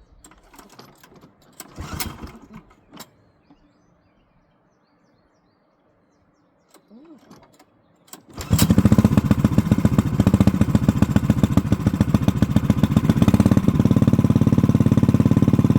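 A few knocks and clicks, then about halfway through a hard-starting engine catches suddenly and runs loud with a quick, even beat.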